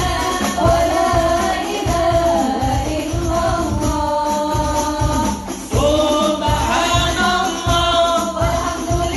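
A devotional song sung by a lead voice with women's backing vocals, over a steady drum beat with jingling percussion.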